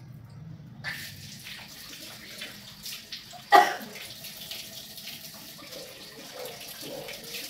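Water from a sink tap starts running about a second in and splashes into a basin as hands rinse under it. One short, loud sound about halfway through stands out above the running water.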